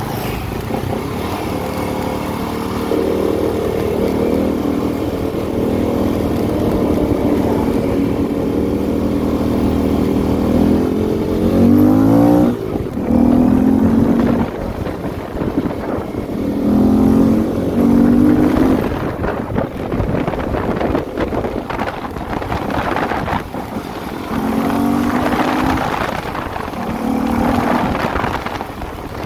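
CFMOTO 300SR single-cylinder motorcycle engine running under way, rising in pitch about eleven seconds in, then swelling in several short surges of throttle, with wind rushing over the microphone.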